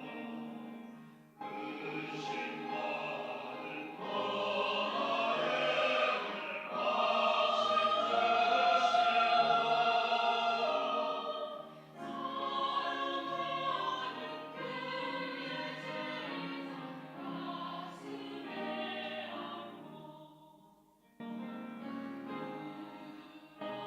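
Church choir singing a Sunday anthem in several parts, phrase by phrase, with short breaks between the phrases. The singing swells to its loudest in the middle and falls back softer towards the end.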